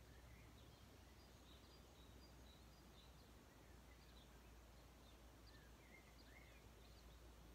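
Near silence, with faint distant birdsong: short chirps scattered throughout.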